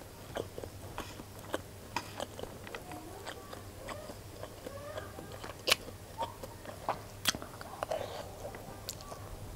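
Close-up eating sounds of fried rice: spoon scraping and scooping, chewing and mouth smacks, with many small clicks. Two sharp spoon clicks, the loudest sounds, come about halfway through and a second and a half later.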